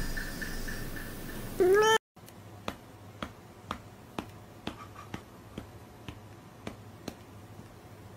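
A cat meows once with a short rising call about a second and a half in. After an abrupt cut comes a run of faint, sharp clicks, about two a second.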